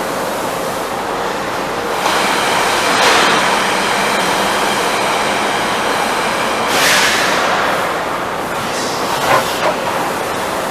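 Daewoo DMV 3016 CNC vertical machining center running: a steady mechanical rush with thin high whining tones over it, swelling a few times, with two short sharp knocks near the end.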